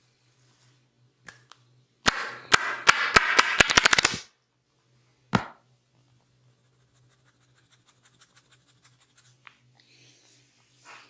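Sharp percussive cracks from a barber's head massage: a run of a dozen or so loud cracks that speed up over about two seconds, then a single crack a second later, followed by faint, light ticking.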